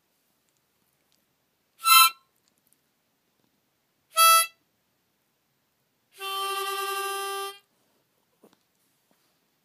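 Harmonica notes with silence between: two short loud blasts about two seconds apart, then a softer note held for about a second and a half.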